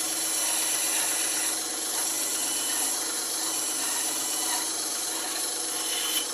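Bandsaw running with a steady hiss over a low hum, with a short click near the end.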